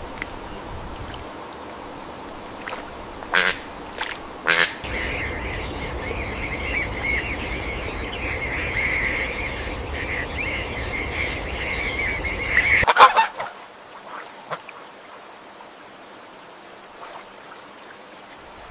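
Birds calling. A few sharp single calls come first, then about eight seconds of dense chattering calls over a low rumble. The chatter ends in a loud burst about thirteen seconds in, and fainter scattered calls follow.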